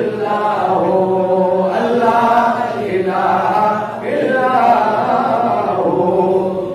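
A man chanting a devotional Islamic milad hymn in long, drawn-out melodic phrases, with a short breath break about four seconds in.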